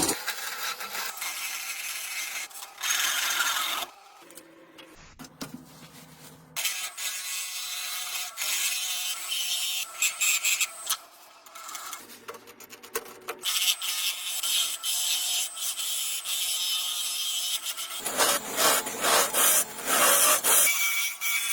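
Woodworking tools scraping and cutting wood with a rasping, filing-like sound, in several short takes with quieter gaps about four seconds and eleven seconds in.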